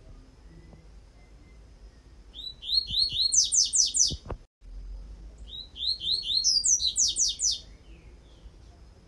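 Double-collared seedeater (coleiro) singing its tui-tui song: two phrases of rapid, repeated high notes, each about two seconds long, the notes jumping higher partway through each phrase. The sound cuts out for a moment between the two phrases.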